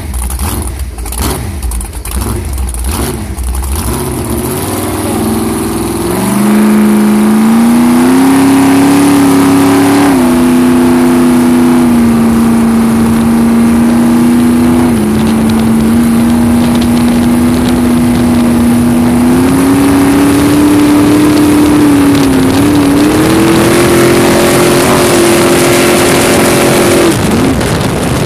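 Carbureted V8 with open chrome headers driving a jet boat. It starts at a lumpy, pulsing idle, then revs up about five seconds in and holds a loud, steady high drone at full throttle over the rush of water and wind as the jet throws its rooster tail. The pitch sags briefly a few times and falls away near the end as the throttle comes off.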